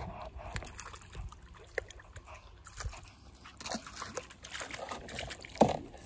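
Faint water sloshing and trickling, with scattered light knocks and taps.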